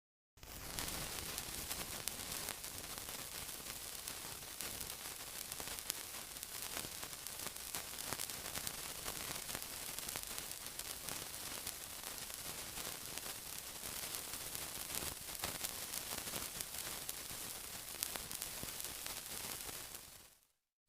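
Steady sizzling hiss with frequent small crackles and pops. It fades in just after the start and fades out near the end.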